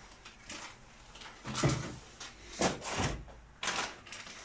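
Handling noise from parts boxes and packaging on a wooden workbench: three or four short knocks and rustles, about a second apart, as boxes are put down and picked up.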